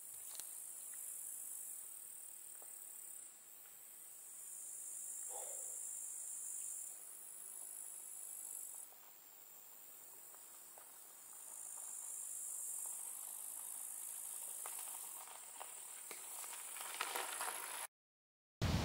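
A high, hissing chorus of crickets stridulating, swelling and fading in spells of several seconds, which stops abruptly near the end.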